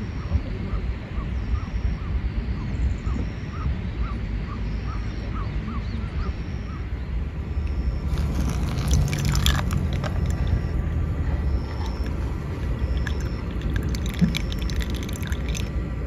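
Hot water poured from an electric kettle into a paper-filter coffee dripper, a hissing trickle that starts about halfway through and comes again near the end. Under it runs a low steady rumble, with regular faint chirps in the first half.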